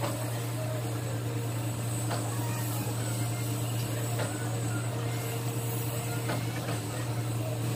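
Kato SR250SP rough-terrain crane's diesel engine running with a steady low drone, with a few faint knocks spread through it.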